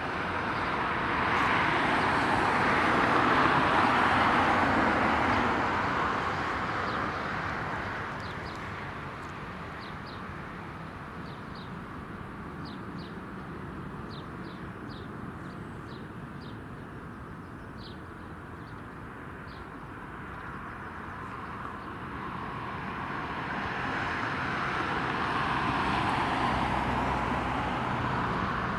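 Airbus A320-214's CFM56 jet engines at takeoff thrust during the takeoff roll: a steady roar, loud at first, that fades for a stretch in the middle and builds again as the airliner comes nearer. A few short high chirps are heard in the quieter middle.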